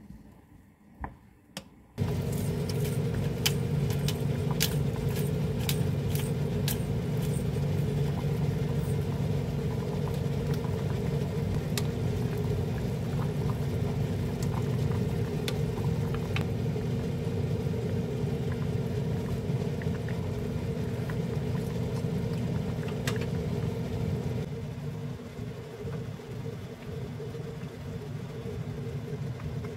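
A steady fan or motor hum starts suddenly about two seconds in and gets somewhat quieter near the end. Over it, a wooden spoon clicks against a pot as stew is stirred, most often in the first few seconds of the hum.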